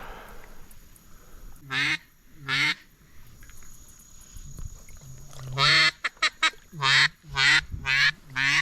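A series of loud, nasal duck quacks: two single quacks about two seconds in, then from about five and a half seconds a longer quack, a few quick short notes, and four more quacks about half a second apart.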